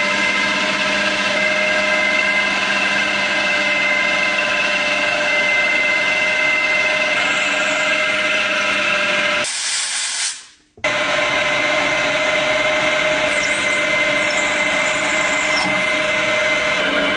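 A small electric motor running steadily with a whine. It cuts out for about a second, roughly ten seconds in, then runs on.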